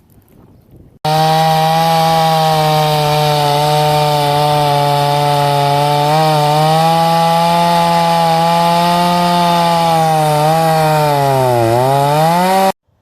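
Chainsaw running at high speed, cutting into a black locust trunk to make a Swedish fire log. It starts abruptly about a second in. Near the end its note sags and climbs back, then it cuts off abruptly.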